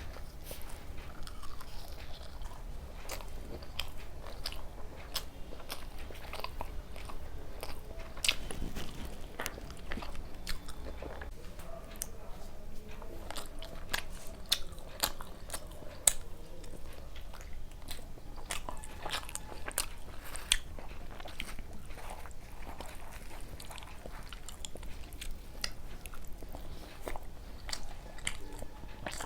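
A person eating close to the microphone: chewing and biting into luchi with chicken kosha, with crunches and many short, wet mouth clicks.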